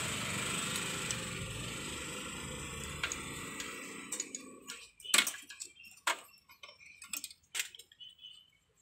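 Steady background noise that fades out about four seconds in, then irregular sharp clicks and taps from a screwdriver and a wire being handled at a motorcycle battery terminal.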